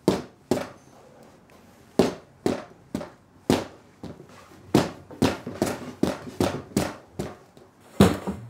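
Paintbrush striking and dabbing paint onto a canvas: sharp, irregular taps, about fifteen in all, often coming in quick runs of two or three a second.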